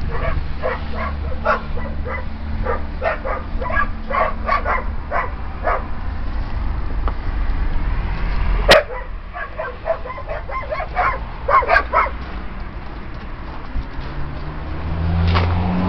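Groenendael Belgian Shepherd dogs barking and yipping in a rapid run of short barks, about two a second, then a pause and a second run of barks. One sharp click about halfway through.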